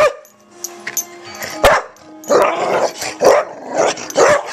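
A small dog barking close by, several short, sharp barks a second or so apart.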